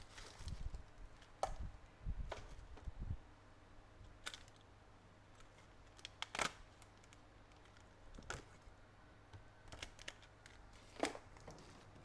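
Handling noise on a phone repair bench: scattered light clicks and taps a second or two apart, with a few low bumps in the first three seconds.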